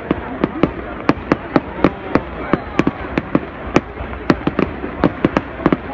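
Aerial fireworks bursting overhead: a dense, irregular string of sharp bangs, several a second, over a continuous crackling hiss.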